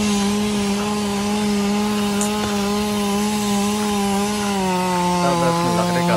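Chainsaw running steadily at high revs, its pitch dipping slightly for the last second and a half.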